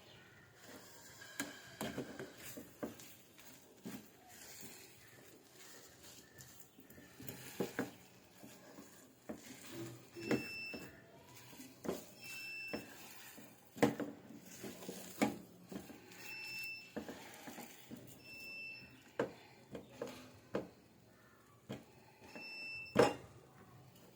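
Irregular knocks and clicks of kitchen utensils and dishes being handled, with about five short, high electronic beeps spread through.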